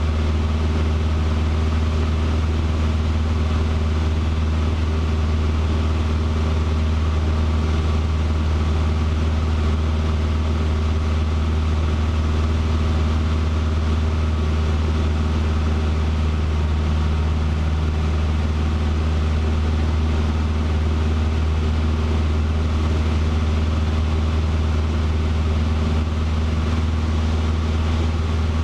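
The piston engine and propeller of a light single-engine airplane, droning steadily in level flight, heard from inside the cockpit.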